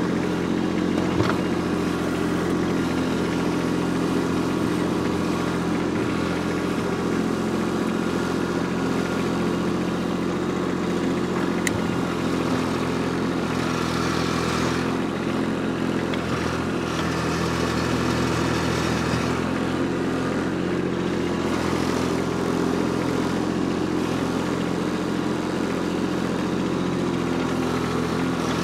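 Kubota B2601 compact tractor's three-cylinder diesel engine running steadily while the front loader works the dirt around a tree stump, with a couple of brief knocks, one about a second in and one near the middle.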